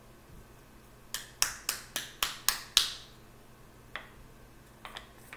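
A jar of loose setting powder knocked against a wooden table seven times in quick succession, about four sharp taps a second, then once more and a few light clicks near the end: tapping to shake more powder out through the sifter.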